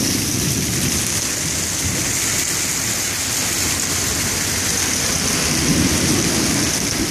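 Heavy rain during a thunderstorm: a steady rushing hiss of the downpour, with water pouring off the roof edge and splattering into a puddle below.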